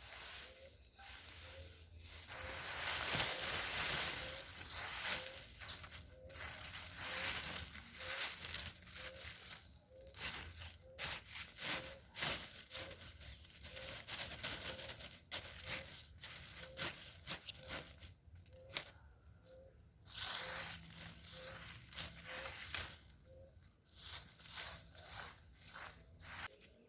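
Dry leaves and twigs rustling and crackling in irregular bursts, with two longer stretches of dense crackling noise, one a couple of seconds in and one near the end.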